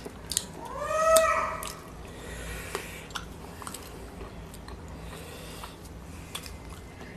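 A domestic cat meows once, a single call about a second long that rises and then falls in pitch, starting about half a second in. Scattered small clicks of eating by hand follow.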